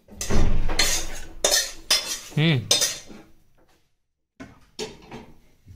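Steel plates and kitchen utensils clattering and knocking: a run of sharp clanks in the first three seconds, then a pause and a few fainter knocks near the end.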